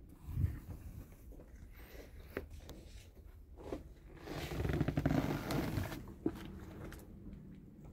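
Rustling and scraping of a handheld camera brushing against leather seat upholstery inside a car cabin. It is loudest in the middle, with a dull thump near the start and a few light clicks.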